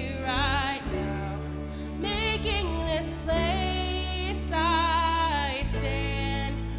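A woman singing a slow worship song with vibrato on the held notes, accompanied by acoustic guitar and sustained low bass notes.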